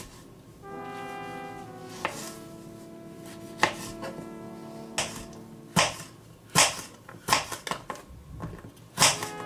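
Knife chopping on a cutting board: about ten sharp cuts, spaced out at first and coming quicker in the second half, over background music.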